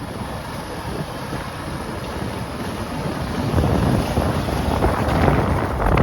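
Wind buffeting the microphone: a rough rushing noise that grows louder about halfway through.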